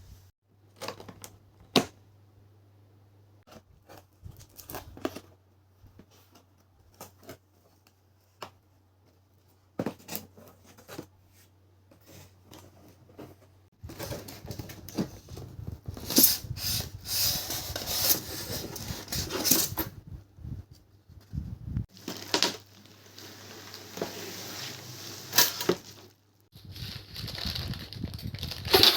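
Packaging being handled while an induction cooktop is unboxed: scattered taps and clicks at first, then from about halfway, long stretches of rustling and crinkling with short breaks.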